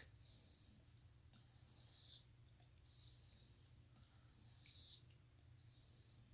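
Dollar Tree multi-tool pocket knife blade being stropped to finish its freshly sharpened edge: faint, even swishing strokes, about five of them, each under a second, roughly one every second and a quarter.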